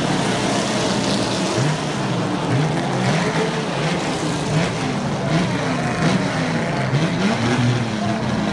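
A pack of Chevrolet Opala race cars accelerating together. Several engines' revs overlap, each rising and then breaking off as it shifts gear, over a steady din.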